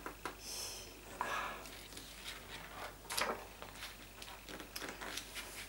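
Large glossy pages of a photo book being handled and turned over: soft paper rustles, with a sharper rustle about three seconds in as a page flips.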